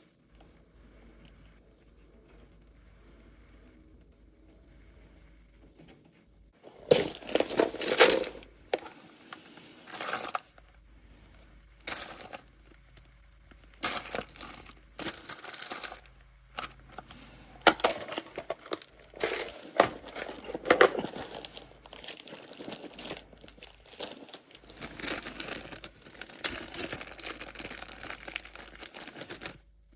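Irregular bursts of rustling, crinkling and scraping handling noise, starting about seven seconds in after a stretch of faint steady hum.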